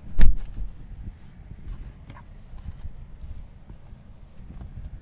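One heavy thump about a quarter second in, followed by a low, steady rumble inside the car's cabin.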